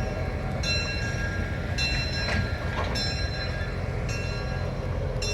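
Small excursion train's bell ringing about once a second over the low, steady rumble of the train.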